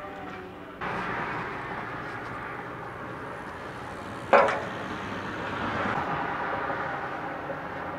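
Steady rushing wind and road noise from riding a bicycle downhill. It gets louder suddenly just under a second in, and there is one sharp, loud knock a little over four seconds in.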